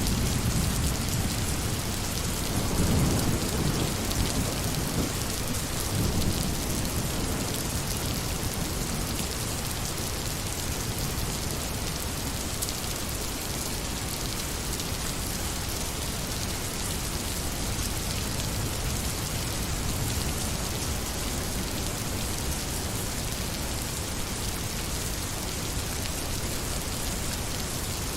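Steady rain falling, with low rumbles of thunder in the first several seconds.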